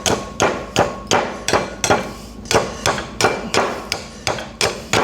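Repeated sharp strikes of a hand tool on wood, about three a second with a short pause about two seconds in: a piece of wood being shaped down into a replacement slasher handle.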